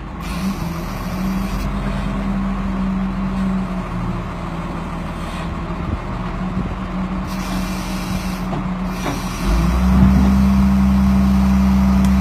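Truck-mounted crane's engine running as the crane hoists a small boat out of the water, with two brief hisses. The engine grows louder and deeper about three-quarters of the way in as the lift takes the boat's weight.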